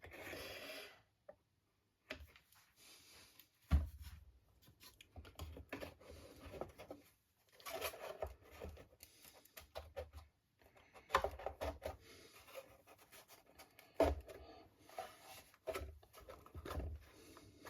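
Wooden model-kit parts being handled and glued on a workbench: intermittent scratching and rubbing with a few sharp knocks as pieces are set down and pressed into place.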